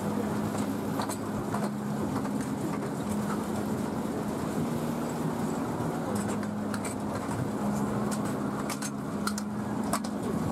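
Elephanta Island mini toy train running, heard from aboard an open carriage: a steady low engine hum with scattered clicks and rattles.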